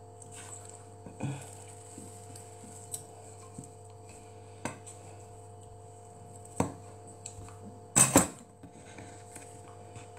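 Small wooden rolling pin flattening croissant dough on a wooden pastry board, with scattered light knocks of wood on wood and a louder double knock about eight seconds in, over a steady low hum.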